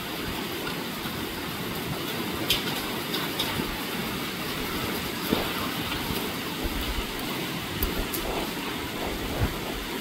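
Steady heavy rain falling in gusting wind, with a few sharp taps of drops striking close by.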